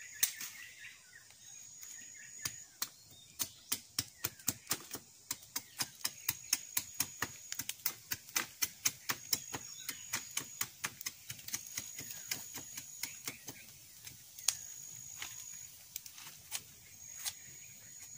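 Bolo machete chopping and whittling a wooden stick into a skewer: a run of sharp knocks of blade on wood, about two or three a second, growing sparse after about two-thirds of the way.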